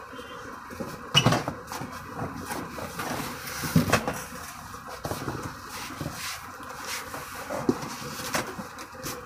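Cardboard box rustling and scraping as an aluminium telescope carry case is pulled out of it, with a series of knocks as the hard case bumps and is set down on a counter; the loudest knocks come about a second in and about four seconds in.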